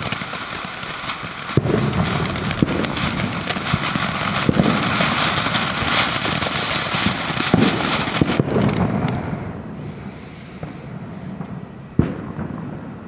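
Ground fountain firework spraying sparks: a steady hiss thick with crackles and scattered pops, dying down about nine seconds in. A single sharp click follows near the end.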